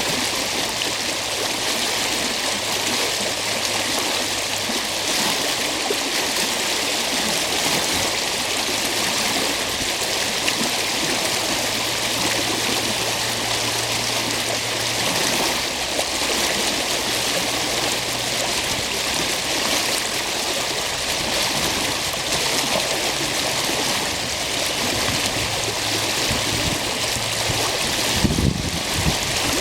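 Stream water rushing and gurgling steadily over its bed. Near the end, wind starts buffeting the microphone with low rumbling gusts.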